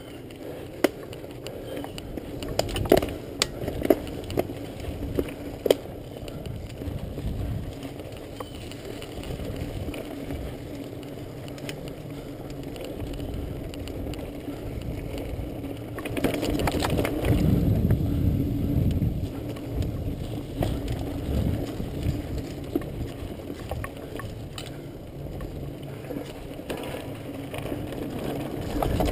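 Mountain bike riding over a dirt singletrack: a steady rumble of tyre and trail noise with the bike rattling, and sharp clicks and knocks over bumps in the first few seconds. The rumble grows louder for a few seconds past the middle.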